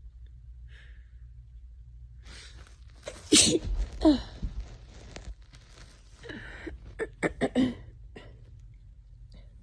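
A person with a cold sneezing: a breathy build-up, then a loud sneeze about three seconds in with a second close behind; a few seconds later another breathy build-up and a quick run of short, sharp sneezes.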